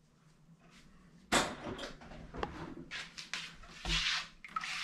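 Kitchen handling sounds of a metal colander of mashed grapes set on a glass bowl: a sudden loud knock about a second and a half in, small clicks and scrapes, and another knock a little before the end as the colander is shifted on the bowl.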